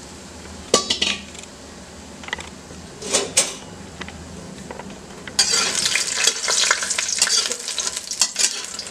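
Makhana (fox nuts) being roasted in ghee in a metal kadhai: a few sharp clinks in the first seconds, then from about five seconds in, continuous scraping and rattling as a spatula stirs the nuts against the pan.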